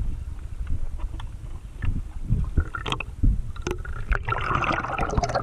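Sea water sloshing and splashing around a camera held at the water's surface, over a low rumble, with scattered sharp knocks and clicks. A longer, denser splash comes near the end.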